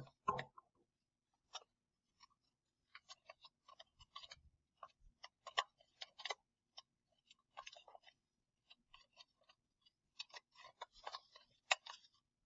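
Faint, scattered crackles and clicks of paper, tape and a cut plastic water bottle being handled as pieces are taped on, opening with a louder bump.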